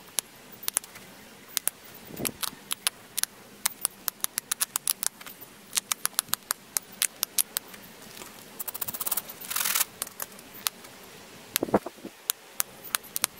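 Pressure flaking of a flint arrowhead with a metal-tipped pressure flaker: a long series of sharp, irregular clicks as small flakes snap off the edge. There is a quick run of clicks and a short scrape about nine to ten seconds in, and a few duller knocks of the piece being handled.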